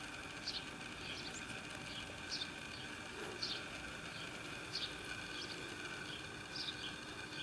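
Faint outdoor ambience with small birds chirping: short high chirps, roughly one a second, over a low steady hiss.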